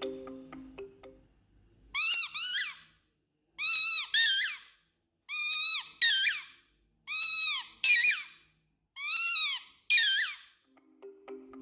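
Squeaky dog toy squeezed five times, each squeeze giving a pair of sharp, high-pitched squeaks that rise and fall in pitch.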